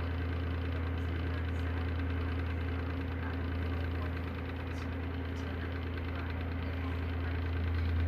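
Electric desk fan running with worn motor bearings, giving a steady low hum.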